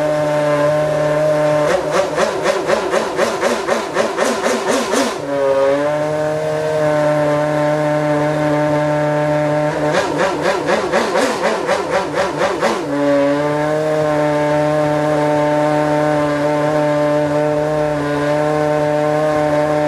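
Red Bull RB8 Formula 1 car's 2.4-litre Renault RS27 V8 idling steadily, with two bursts of rapid throttle blips at about four a second, each settling back to idle.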